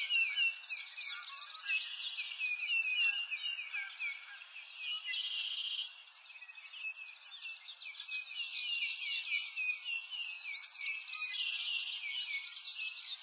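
A dense chorus of many birds chirping and singing, with short rising and falling calls overlapping throughout.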